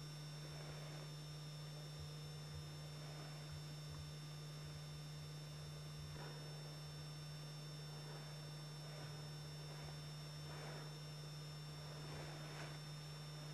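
Steady low hum with an even hiss, with a few faint, indistinct short sounds about halfway through and near the end.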